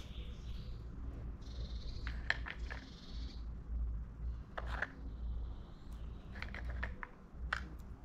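A bird pecking at food on a feeder: sharp taps in small clusters, a few about two seconds in, a single one near the middle, then another cluster and a last tap near the end. Faint chirping of small birds and a steady low rumble sit underneath.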